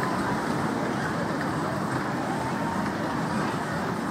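Steady funfair din: the Orbiter ride's machinery running, with faint voices mixed in.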